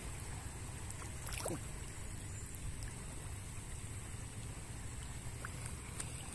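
Cast net being drawn by its line through shallow river water, with a steady low wash of water and wind rumble. A short falling tone comes about a second and a half in.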